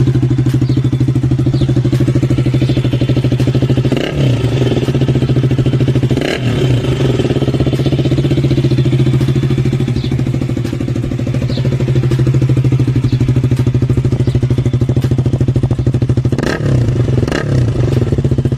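KTM RC 200's single-cylinder four-stroke engine running loud and steady through a free-flow open exhaust pipe with no muffler. Short throttle blips come about four and six seconds in and twice more near the end.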